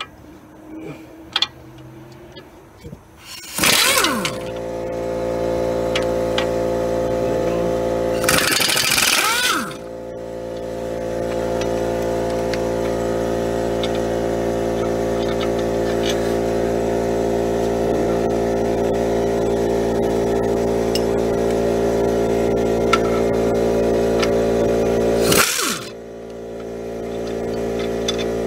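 Impact wrench hammering in short bursts on the brake caliper bolts: once about four seconds in, a longer burst around nine seconds, and once more near the end. Under the bursts runs a steady machine hum that starts with the first burst and dips briefly after each one.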